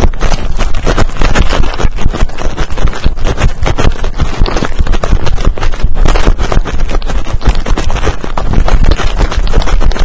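Dry grass and brush scraping and rustling against a camera worn by a running English springer spaniel. Dense, loud jostling with constant knocks as the dog bounds through the cover.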